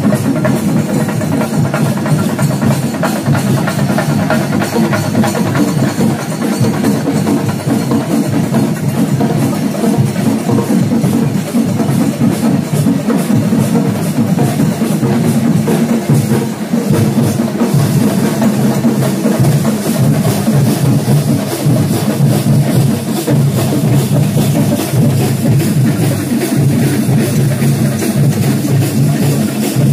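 Festival drumming: many drums beaten together in a loud, dense, unbroken roll.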